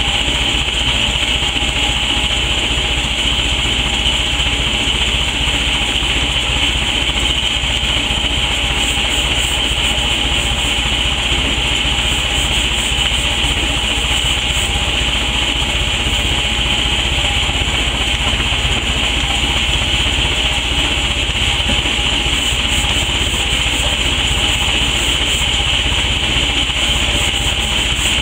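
Hand brush scrubbing sawdust off freshly sawn wooden planks, over a loud, steady mechanical drone.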